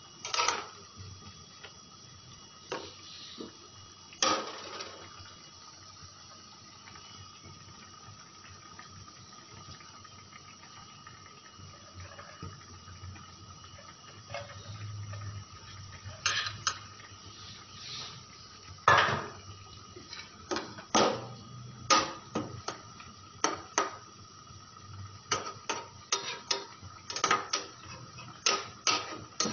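Spatula knocking and scraping against a non-stick frying pan as a thick curry is stirred: a few sharp clicks in the first few seconds, then a quick, irregular run of knocks from a little past halfway. A faint steady whine runs underneath.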